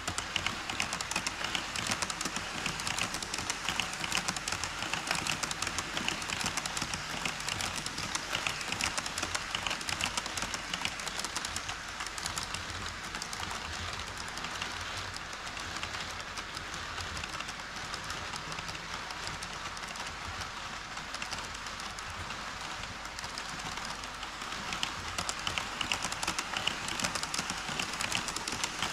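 HO scale model train running on KATO Unitrack, its wheels and motor making a dense, steady clatter on the track. It is louder at the start, eases off through the middle and grows louder again near the end.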